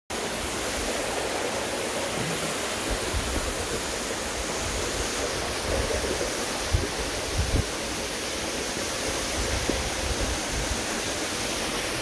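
Steady rushing of a waterfall pouring down over rock, with a few brief low thumps around the middle.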